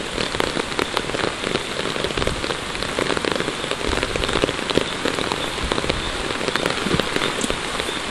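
Steady rain, with many sharp drop hits close to the microphone.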